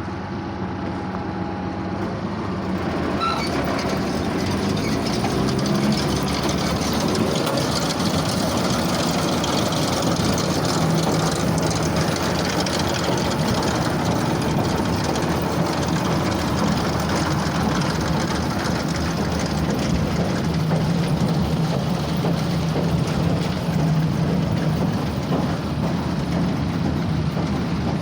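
Case IH 8590 large square baler running behind its tractor: a steady engine sound under the dense clatter of the baler's mechanism, growing louder over the first several seconds and then holding.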